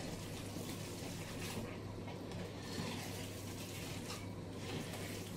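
Hands squishing and kneading a wet raw-mince meatloaf mixture in a bowl: soft, moist squelching, with a few slightly louder squishes.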